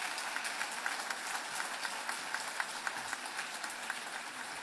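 Audience applauding: a dense, steady round of many hands clapping.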